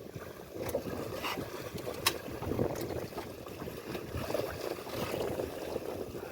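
Wind buffeting the microphone and water moving around a small boat on a river, an uneven rushing noise, with one sharp click about two seconds in.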